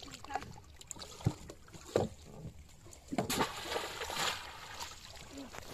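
Water splashing and sloshing, with two sharp knocks in the first two seconds and a longer stretch of splashing about three seconds in.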